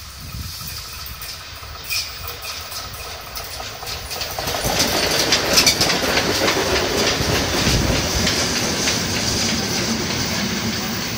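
A passing train: the DR class 44 steam locomotive 44 1486-8 and its coaches rolling by close, with wheels clicking rapidly over the rail joints. The sound grows louder about four seconds in as the engine draws level.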